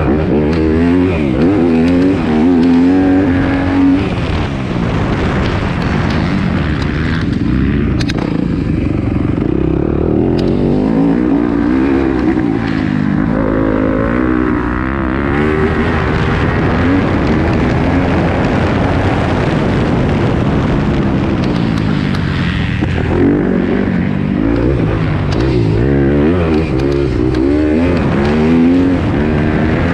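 Yamaha YZ250F four-stroke single-cylinder motocross bike engine heard from the rider's helmet camera, revving up and down again and again as it is ridden hard around the track. Wind and dirt noise run under it.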